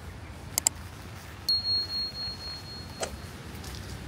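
A single high-pitched ring about one and a half seconds in, fading away over about a second and a half. A sharp double click comes before it and another click follows just after it.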